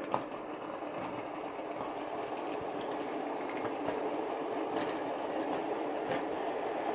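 Several double-bearing metal fidget spinners whirring together on a tabletop, a steady hum that grows slowly louder as more of them are set spinning. A few sharp clicks come from fingers flicking them, one just after the start and another near the end.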